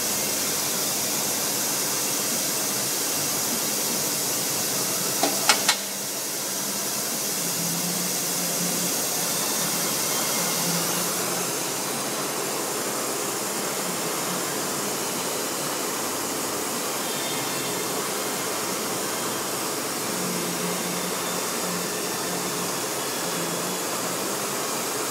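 Steady machine whir and hiss, with three quick clicks about five seconds in, after which it runs slightly quieter.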